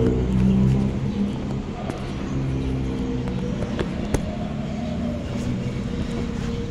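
A vehicle engine running, its pitch wavering up and down, over a steady hiss, with a couple of sharp clicks about four seconds in.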